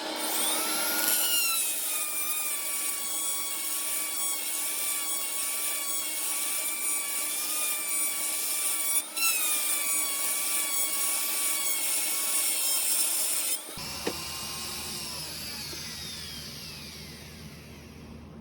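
A grinding wheel grinding the pitted bearing race of a steel bicycle hub bearing cone spinning on a lathe: a hissing grind over a wavering motor whine, with a brief break about halfway through. Near the end the grinding stops suddenly and the whine falls away as the machine spins down.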